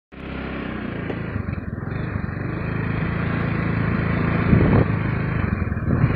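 Motorcycle engine running steadily while the bike is ridden, heard from on the bike, with a few brief louder knocks about two-thirds of the way through.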